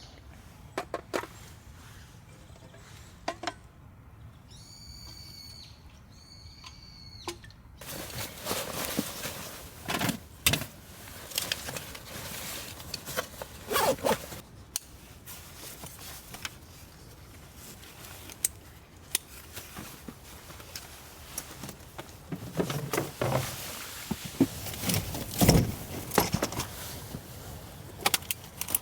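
A bird calls twice, each call about a second long. Then come irregular knocks, clinks and rustling, as of camping gear being handled and packed.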